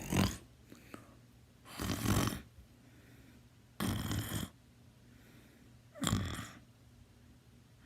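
A sleeping teenager snoring, one short snore about every two seconds.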